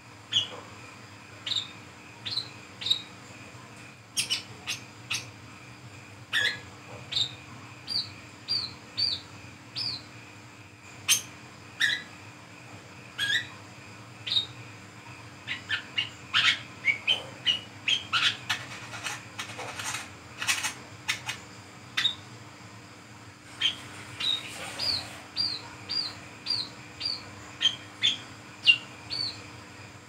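Brown-throated sunbird (wiceh, kolibri kelapa) calling: a long, irregular series of short, sharp, high chirps and squeaky sliding notes, coming thickest about halfway through, with a short lull just before the last stretch.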